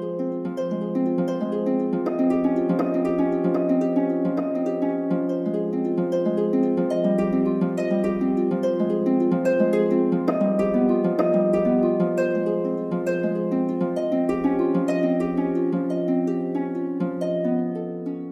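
Soft background music of plucked harp-like notes over a steady low sustained tone.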